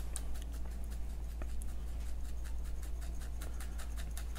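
Garlic powder being shaken out of a small spice jar: a run of light, quick ticks, irregular at first, then about five a second.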